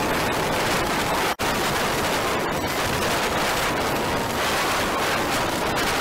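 Wind rushing and crackling over the microphone of a camera on a moving motorcycle, a loud steady haze that drowns out the engine. The sound cuts out for an instant about a second and a half in.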